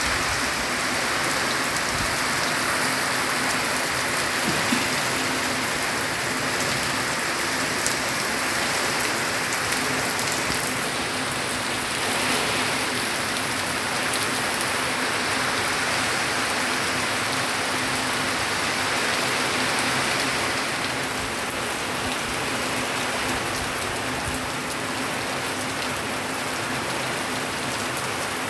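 Heavy rain falling steadily on ground and puddles: a dense, even hiss with a few sharper drop hits.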